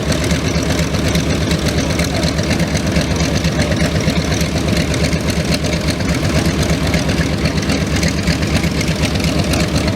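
Large aircraft radial engine idling steadily with an even, rapid beat.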